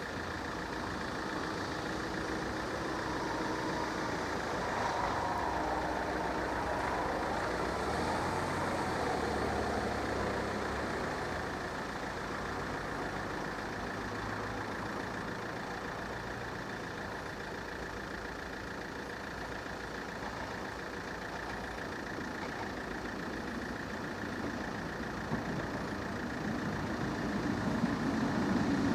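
Steady vehicle engine noise, typical of a car idling while it waits at a closed railway level crossing. Near the end an approaching train grows steadily louder.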